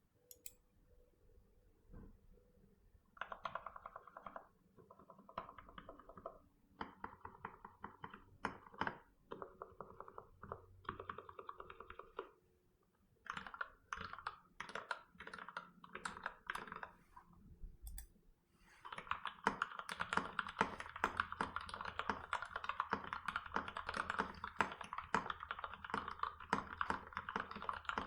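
Typing on a KBD75V2 mechanical keyboard with lubed Gateron Black linear switches in milky top housings, an aluminium plate with plate foam, and PBT keycaps. Short bursts of keystrokes with brief pauses, then steady fast typing for the last third.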